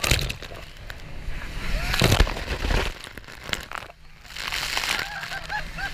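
Rapids water crashing over the bow of an open jet boat and splashing onto the camera in loud bursts about two seconds apart. Passengers shriek and laugh in the second half.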